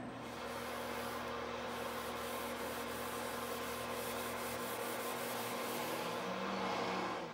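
A cloth rubbing over a flat wooden surface as finish is wiped on, a steady soft rubbing noise with a faint hum underneath.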